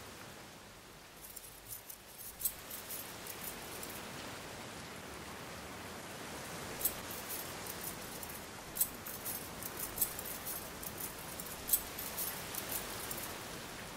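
Light metallic clinking and jingling, scattered small sharp ticks over a steady hiss, sparse at first and busier in the second half.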